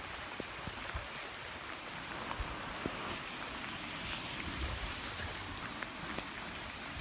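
Steady hiss of rain on wet pavement, with scattered small clicks and occasional soft low thumps.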